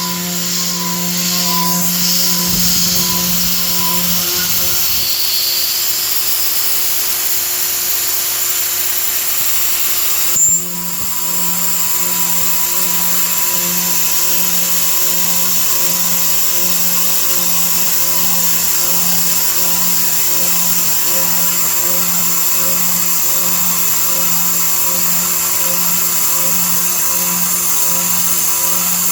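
CNC mill spindle running steadily, a high whine and hiss over a low hum that pulses at an even rate. A sharp click sounds about ten seconds in.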